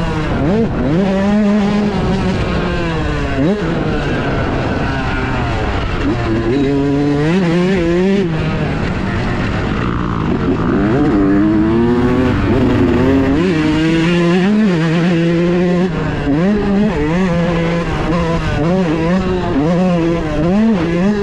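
2018 Yamaha YZ125's 125 cc single-cylinder two-stroke engine being ridden hard, its pitch rising and dropping back again and again as the throttle and gears change. The main jetting is set a little on the rich side, which the rider puts down to the hot weather.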